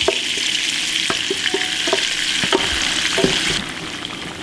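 Ground ancho and guajillo chile paste frying in hot melted butter and oil, a steady sizzle that dies down near the end. A wooden spoon scrapes the paste out of a blender jar and knocks and stirs in the pan.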